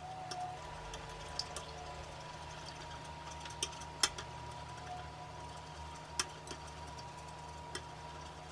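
Wooden chopsticks stirring an egg, milk and vanilla mixture in an enamel bowl, with scattered light clicks of the chopsticks against the bowl, the sharpest about four seconds in, over a faint steady hum.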